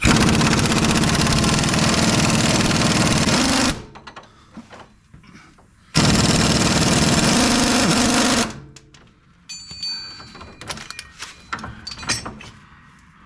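Impact wrench hammering on a shock absorber bolt in two bursts, the first about four seconds long and the second about two and a half, followed by light metallic clinks and rattles.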